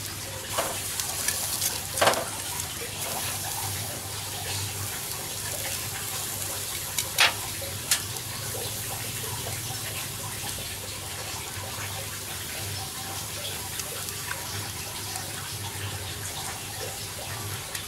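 Turkey breast sizzling on a grill over hot charcoal: a steady hiss, with a few sharp clicks about two seconds and about seven seconds in.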